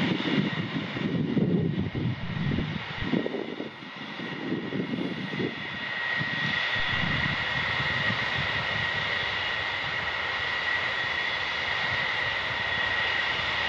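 Boeing E-3A AWACS's four Pratt & Whitney TF33 turbofans running at low power as the jet taxis slowly: a steady high engine whine that grows stronger about six seconds in. Gusts of wind rumble on the microphone during the first several seconds.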